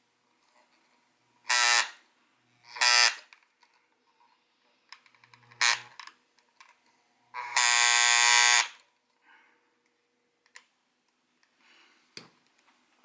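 Aoyama electric massager giving four loud, harsh buzzes in separate spurts, the last and longest lasting over a second: the unwanted noise the massager is making.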